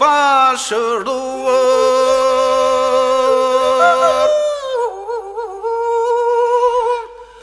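A man singing a Labërian lament unaccompanied, drawing out the last word of a line into long held notes with a wavering ornament partway through. The sound drops away briefly just before the end.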